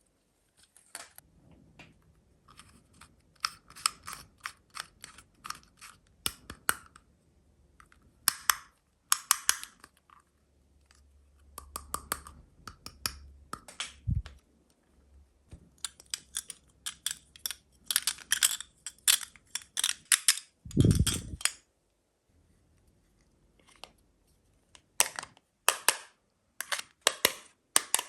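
Close-up handling of toy packaging and small plastic toys: bursts of crinkling, snipping and clicking, with two short low thuds, one about halfway through and one about three quarters of the way in.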